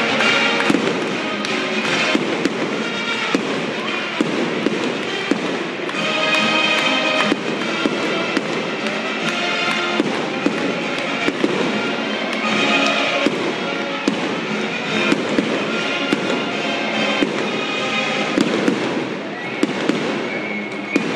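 Aerial fireworks bursting overhead in a steady string of sharp bangs and crackles, with music playing underneath.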